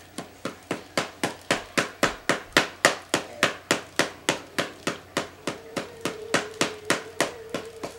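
Paddle ball being played: the rubber ball on its elastic string strikes the paddle in an unbroken run of quick, even hits, about four a second.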